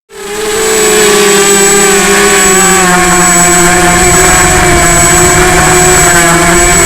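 FPV quadcopter's electric motors and propellers whining steadily, fading in over the first second, with a loud steady pitch that wavers slightly as the throttle shifts. A constant thin high tone sits above it.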